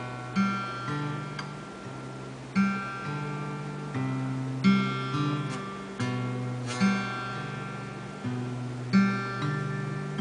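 Alvarez acoustic guitar playing a repeating chord pattern, with a sharp accented strum about every two seconds and the bass notes changing under the held chords.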